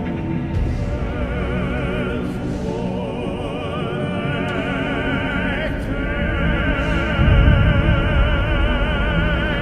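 Music with an operatic voice singing high held notes with a wide vibrato over sustained low accompaniment. A deep low swell about seven seconds in is the loudest moment.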